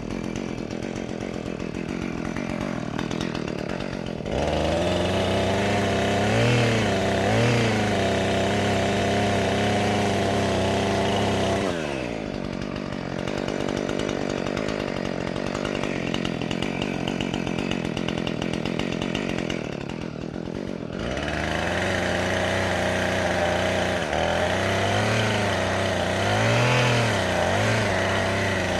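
Two-stroke chainsaw idling, then opened up to full throttle for about eight seconds, its pitch dipping as it bogs under load in the cut, dropping back to idle for several seconds, and throttled up into a second cut near the end. It is cutting oak for firewood.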